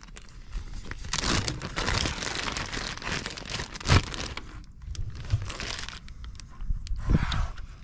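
Fillet knife cutting a striped bass on a plastic cutting board: a scraping, crunching run of strokes through scales and rib bones, followed by two sharp thumps as the fish is handled and turned on the board, one about four seconds in and one near the end.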